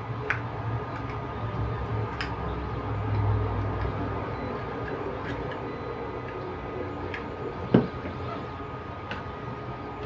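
Small sharp clicks and handling noise of a plastic smart-plug housing being pried apart, with one louder knock about three-quarters of the way through, over a low steady hum.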